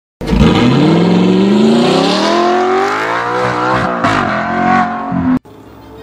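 Audi R8's 4.2-litre V8 through an Armytrix aftermarket exhaust, accelerating hard with its pitch climbing, easing briefly about four seconds in and pulling up again, then cut off suddenly just past five seconds.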